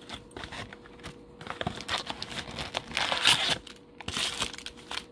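Cellophane wrap crinkling and cardboard rustling as a trading-card blaster box is opened and its plastic-wrapped packs are pulled out. The crackling comes in irregular handfuls and is loudest about three seconds in.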